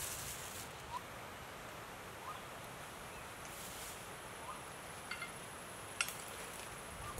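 Forest ambience: a bird gives short, soft chirps every second or so, with a few sharp clicks about five and six seconds in and a thin steady high-pitched whine.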